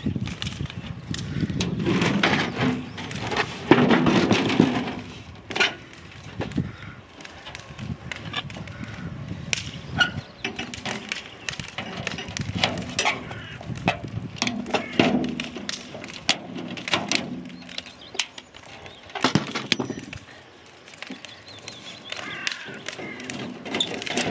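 Irregular knocks, taps and clatter of sheet metal being handled, clamped and fitted against a garden cart's metal tub, with hand tools set down and picked up.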